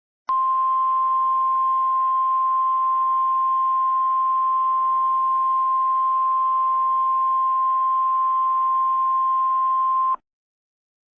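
Emergency alert attention tone: one steady, high beep near 1 kHz that holds for about ten seconds, then cuts off cleanly. It signals that a spoken alert message follows.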